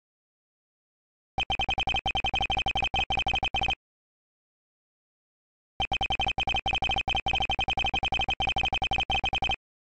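Ace Attorney-style dialogue text blips: a rapid string of short electronic beeps, one for each character typed into the text box. There are two runs, one starting about a second and a half in and lasting about two and a half seconds, and a longer one starting about six seconds in, with silence between them.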